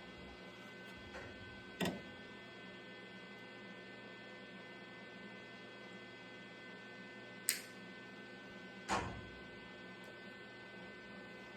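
Steady electrical hum, with three brief sharp clicks or knocks: one about two seconds in and two more near the end, a second and a half apart.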